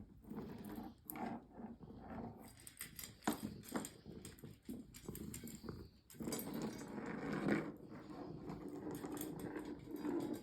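Cats eating their dinner: chewing and crunching from food bowls, with scattered small clicks and knocks, and a denser stretch of eating noise from about halfway through.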